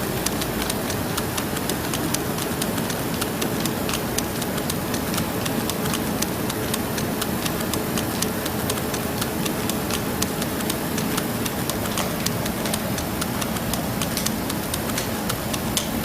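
Rapid, irregular plastic clicking and clacking of Rubik's cubes being twisted and caught while juggled, over a steady background hiss.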